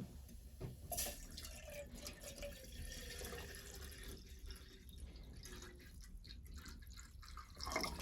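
Water pouring and dripping for about seven seconds, starting about a second in, with a louder splash near the end.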